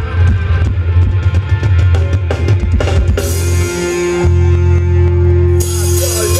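Loud live band music for a Thai ramwong dance, with drum kit, a heavy bass line and guitar. A long held note comes in about halfway through and a cymbal crash near the end.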